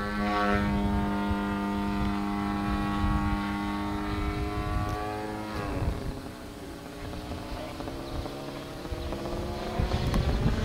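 Radio-controlled 30% scale Extra aerobatic plane flying overhead, its engine and propeller holding a steady pitch. About halfway through the pitch drops and the sound grows quieter, then it climbs again near the end as the power comes back up.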